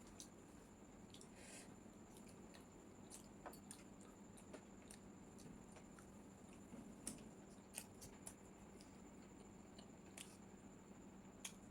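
Faint eating sounds: soft, irregular clicks and smacks of chewing chicken chow mein, over a low steady background hum.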